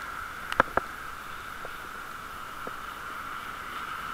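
Steady hiss of a bicycle rolling along a wet road in the rain, with two or three sharp clicks from the bike about half a second in.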